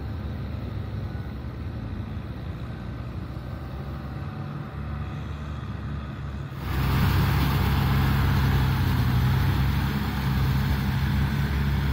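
Kubota M6040SU tractor's four-cylinder diesel engine running steadily as it works through deep paddy mud with a rotary tiller on the back. About two-thirds of the way in the sound jumps suddenly louder and nearer, a rushing hiss joining the engine drone.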